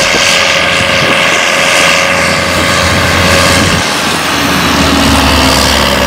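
New Holland tractor drawing a loaded silage trailer past at speed, its diesel engine running steadily under load with tyre noise. The sound cuts in suddenly at the start.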